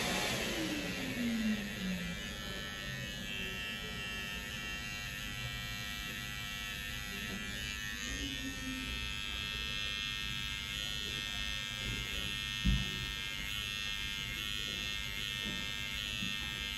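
Electric hair trimmer buzzing steadily as it cuts along a client's hairline, with one brief knock about three-quarters of the way through.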